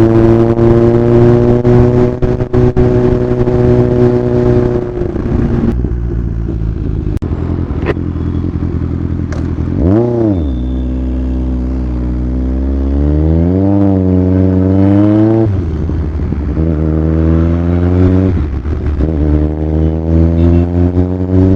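Kawasaki Z1000 inline-four motorcycle engine under way: holding steady, then easing off about five seconds in, a quick blip of the revs about halfway, another rise and fall a few seconds later, and revs climbing as it accelerates near the end.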